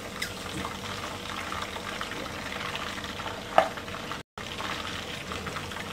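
Hot oil in a wok sizzling steadily around battered chicken pieces as they are deep-fried and lifted out with a slotted spatula. A single sharp knock sounds about three and a half seconds in, and the sound cuts out for a moment just after.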